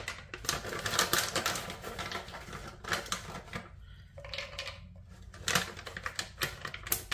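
Walnut pieces handled and dropped by hand into a plastic blender cup. A rapid, dense run of small clicks and crackles, with a brief lull about four seconds in.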